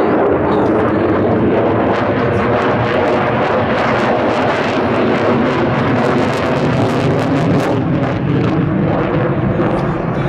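Loud, steady noise of a USAF F-35A Lightning II's single Pratt & Whitney F135 jet engine during a flying display, with a crackling rasp that is strongest about four to eight seconds in.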